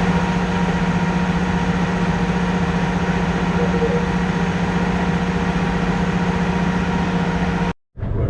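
A vehicle's engine running steadily at constant speed: an even drone with a strong, steady low hum and a wide rushing noise that does not change. It cuts off abruptly near the end.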